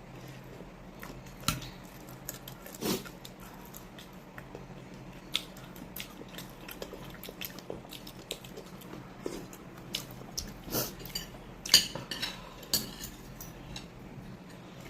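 Cutlery clinking against plates and bowls while eating, in scattered short clicks, the sharpest about twelve seconds in.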